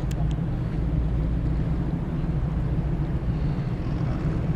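Steady low rumble of outdoor harbour background noise, with no distinct event and a brief click at the very start.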